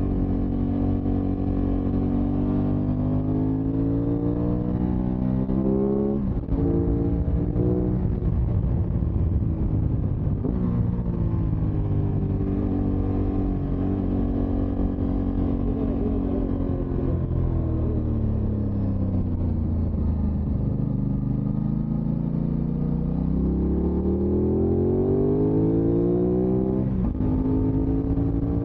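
Aprilia motorcycle engine running under way. Its pitch climbs and then drops sharply at a gear change about six seconds in and again near the end, and sinks slowly through the middle as it slows before climbing again.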